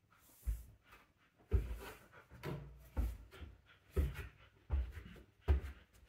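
Footsteps going down wooden stairs: a series of heavy thumps, about one a second.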